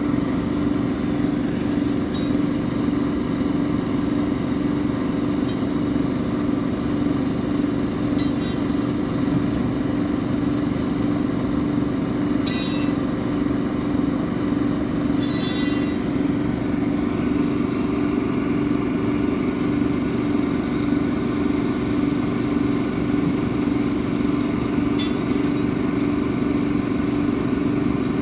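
Engine idling steadily with a constant low drone. Two short bursts of hiss come about three seconds apart near the middle.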